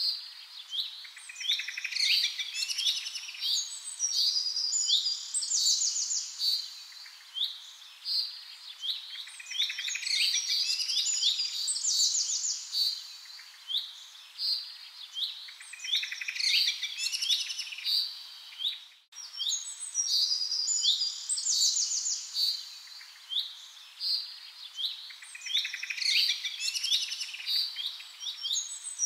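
Recorded birdsong used as a background track: many overlapping high chirps and trills from several small birds, with a short break about two-thirds of the way through, after which the same pattern seems to start over.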